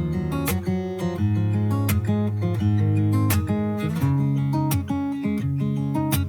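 Background music: an instrumental intro of strummed acoustic guitar with a steady beat, before the vocals come in.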